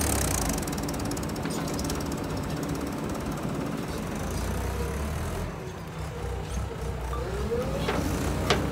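Diesel engines of a Mahindra Yuvo tractor and a JCB 3DX backhoe loader running steadily as the tractor moves off with a loaded trolley of soil. A single sharp knock comes near the end.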